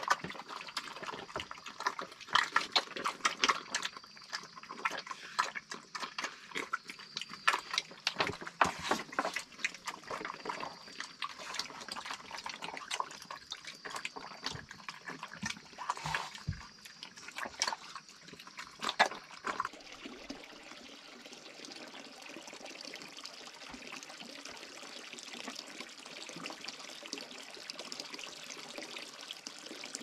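Two pigs eating from a wooden trough, a dense run of sharp clicks and wet smacks. About twenty seconds in this gives way to a steady stream of water pouring from a spout into a wooden trough.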